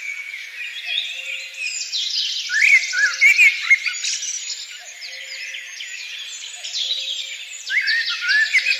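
Many small birds chirping and trilling together in a dense chorus, full of quick rising and falling whistled notes. A faint low tone comes and goes underneath about every second and a half.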